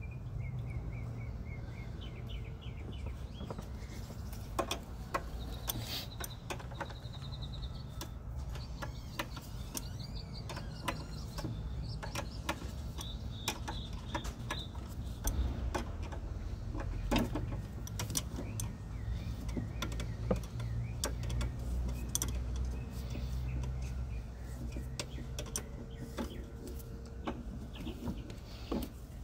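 Scattered metal clicks and taps of a wrench working loose the brake line fittings on a Toyota 4Runner's HBB ABS unit, over a steady low rumble, with birds chirping now and then.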